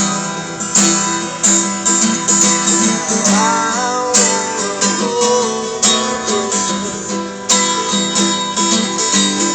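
Live band music led by a strummed acoustic guitar in a steady rhythm, with a melody line sliding over it between sung lines.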